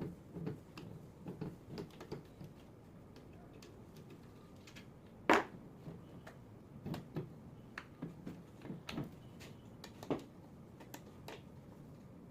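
Irregular light clicks and knocks from tools and parts being handled during alternator repair work, with one sharper click about five seconds in.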